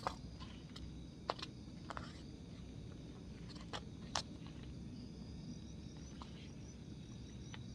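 Forest ambience: insects chirring steadily at a high pitch over a low rumble, broken by a few short sharp clicks or snaps, the loudest just over a second in and about four seconds in.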